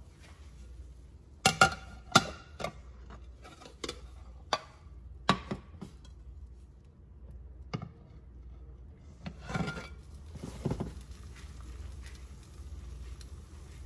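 A plate and a frying pan knocking and clinking as an omelet is turned out of the pan onto the plate and slid back into the pan to cook the other side: a string of sharp knocks, the loudest a few about two seconds in and another cluster after nine seconds.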